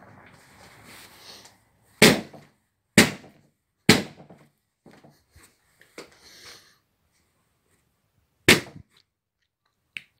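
Hard blows struck on a Sony laptop's display lid, an attempt to smash the screen: three sharp hits about a second apart, a few lighter knocks, then one more hard hit near the end.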